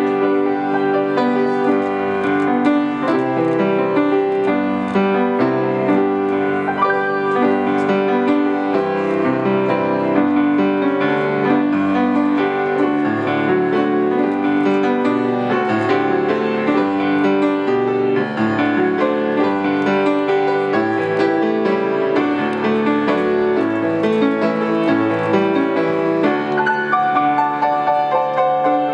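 Grand piano played solo: a hymn arrangement of held chords under a moving melody, going on without a pause.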